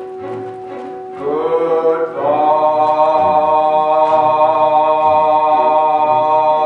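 Live pit orchestra holding a note over a repeating low pulse. About two seconds in, voices slide up into a loud, long-held chord, sung over the continuing pulse.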